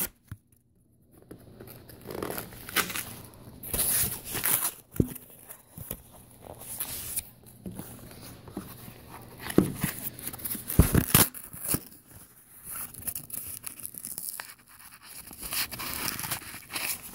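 Paper packaging being torn open and handled, with irregular tearing, crinkling and scraping noises starting about a second in.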